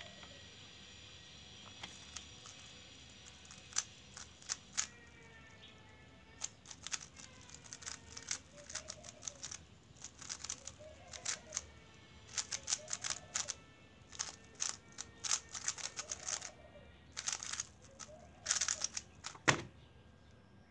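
Weilong GTS2 3x3 speed cube being turned fast through a solve: bursts of quick plastic clicking and clattering start about two seconds in and run for about seventeen seconds. Near the end comes one sharp knock as the cube is set down and a key is hit to stop the timer.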